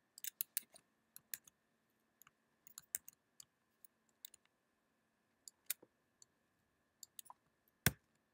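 Quiet, irregular clicks of a computer mouse and keyboard, about a dozen, with one sharper click near the end, over a faint steady hum.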